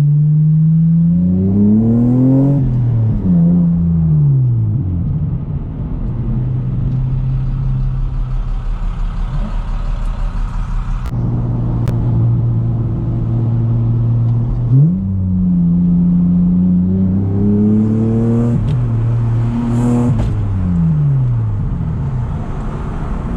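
Lexus IS300's 2JZ-GE inline-six, fitted with an SRT intake, revving up and falling back twice, with steady running at a lower pitch in between.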